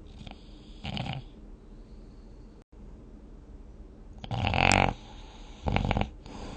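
A person snoring while dozing: a short snore about a second in, then a much louder snore past the middle, followed by another shorter one.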